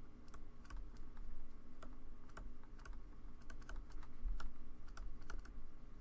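A stylus tapping and clicking on a pen tablet during handwriting: light, irregular clicks, several a second.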